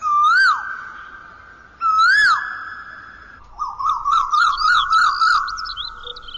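Birdsong: two loud swooping whistles over a steady high tone, then from about halfway a rapid warbling trill with quick high chirps. The abrupt start suggests a recorded bird-sound track.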